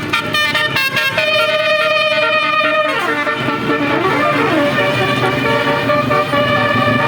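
Basuri multi-tone telolet bus horn playing a run of quick stepped notes, then a siren-like sweep that falls and rises again about three seconds in, then held notes.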